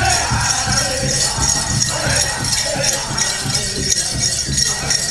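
Powwow drum group singing a grass-dance song over a steady drumbeat, with the dancers' bells jingling.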